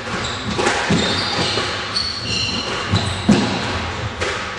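Squash rally: the ball is struck by rackets and smacks against the court walls in several sharp hits, the loudest about three seconds in, with shoes squeaking on the court floor.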